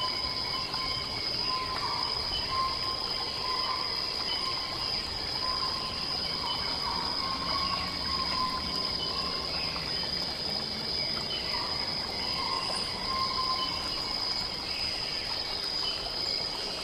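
Night-time jungle ambience: falling water runs steadily under a continuous high insect trill, while a lower call comes and goes every second or two.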